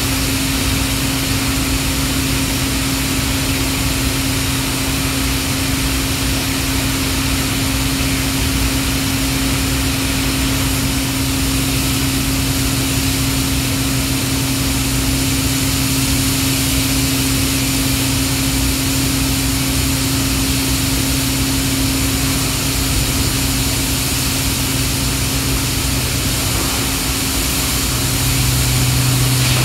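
Hydraulic power unit of a 2980-ton Husky plastic injection molding machine running, a steady hum over a broad hiss; about two seconds before the end the lower hum grows louder.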